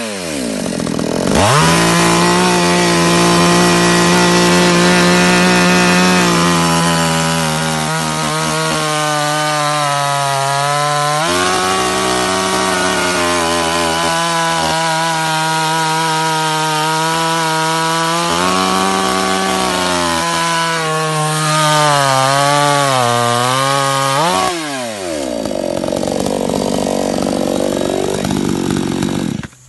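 BSC Power petrol chainsaw, a two-stroke engine, revving and cutting through a log. The engine pitch drops and wavers under load in the cut and rises again when it frees up, with brief dips to low revs about a second in and near the end. The engine stops abruptly just before the end.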